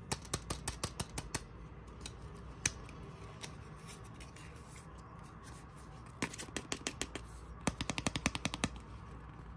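Handling noise from a plastic toy capsule and its card tag and paper leaflet being turned over and unfolded. It comes as runs of sharp clicks and crackles: a quick run at the start, a few more just past the middle, and a fast run of about ten clicks a second near the end.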